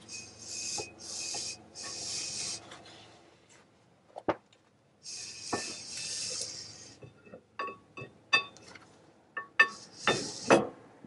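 Metal rasping and scraping in several bursts, then a run of sharp metallic clinks and knocks in the second half, as a Dana 35 rear axle shaft is slid out of the axle tube.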